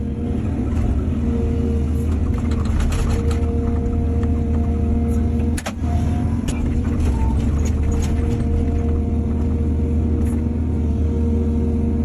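Excavator's diesel engine running steadily, with a steady hydraulic whine over it and scattered sharp knocks and scrapes.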